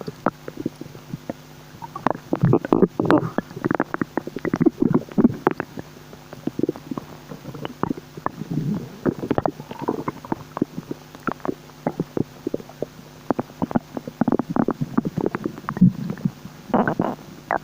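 Human stomach and bowels gurgling and bubbling: a string of irregular short pops and squelchy gurgles, sparse at first and much busier from about two seconds in.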